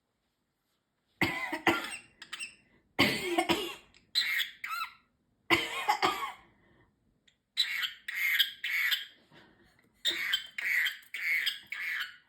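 Pet parrotlet mimicking a human cough, a string of short fake coughs starting about a second in.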